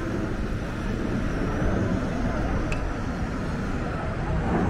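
Steady low rumbling outdoor noise with faint voices of people in the background.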